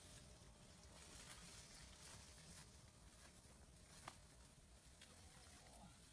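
Near silence: faint background hiss with a few soft, brief ticks.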